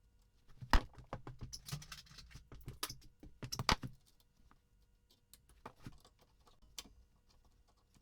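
Irregular clicks, clinks and knocks of hand tools and metal parts as an ATV's rear brake drum assembly is worked apart. They come thick in the first few seconds, with two louder knocks, then thin out to scattered clicks.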